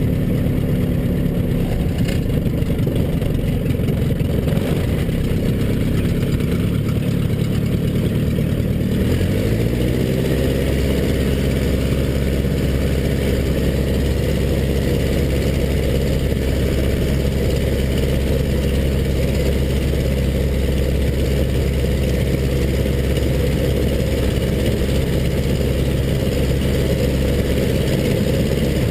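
Zlin Z-126's Walter Minor four-cylinder air-cooled piston engine running at low power while the aircraft taxis on grass, heard from the cockpit. About nine seconds in the engine speeds up slightly and then runs steady at the higher pitch.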